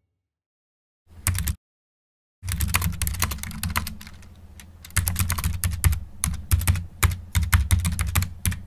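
Typing on a laptop keyboard: a short burst of keystrokes about a second in, then rapid typing from about two and a half seconds, with louder, more separate key clicks in the second half.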